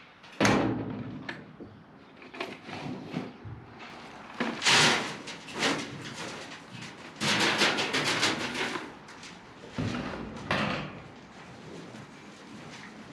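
A sharp bang about half a second in, followed by a series of shorter knocks and rattling scrapes, like a door or lid being handled.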